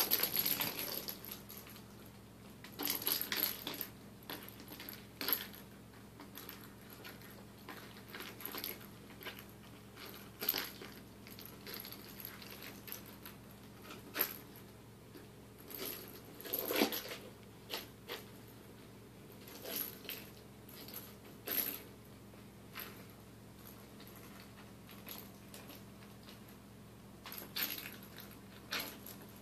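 Kittens batting a small plastic toy ball about on a wooden floor: scattered clicks and short rattles every second or two.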